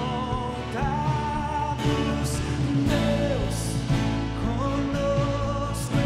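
A band playing a Portuguese Christian worship song: long, sliding sung notes over guitar, bass and drums, with cymbal hits.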